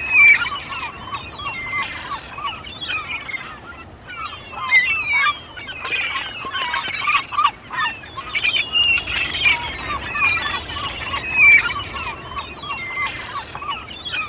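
A flock of birds calling and chirping over one another in a dense, continuous chorus of many short notes.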